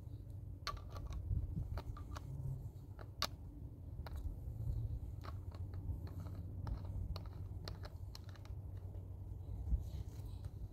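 Light, irregular clicks and taps from a plastic bottle and cup being handled, over a steady low rumble.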